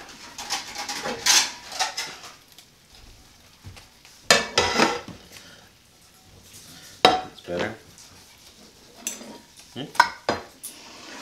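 Carving knife and fork scraping and clinking against a serving platter while a whole roast chicken is carved, in several irregular bursts of clatter.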